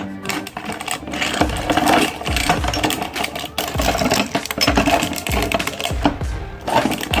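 Electric meat grinder running and crushing crunchy ice cream cones: a dense crackling crunch over the motor, with a low thud about every half second as the auger turns.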